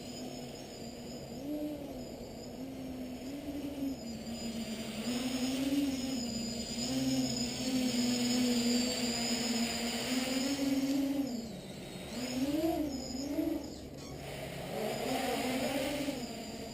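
Small electric quadcopter's motors and propellers buzzing in flight, the pitch swinging up and down again and again as the throttle changes.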